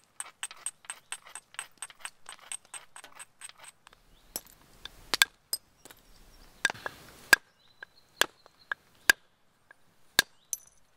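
Flint knapping: a flint piece worked on a leather pad, first a quick run of light, even taps, about five a second, then a string of sharper, louder clicks as strikes knock flakes off the flint.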